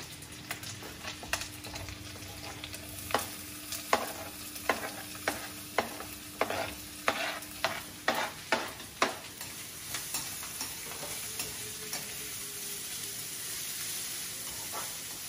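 Chopped onion frying in hot oil in a kadhai: a steady sizzle, with a run of sharp knocks against the pan between about three and nine seconds in as the onion is scraped in and stirred.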